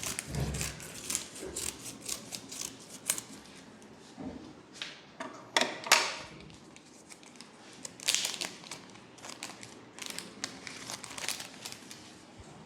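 Hands massaging the head, fingers rubbing and scratching through hair and over skin. The sound is an irregular, crackly rustling in uneven strokes, loudest about halfway through and again a couple of seconds later.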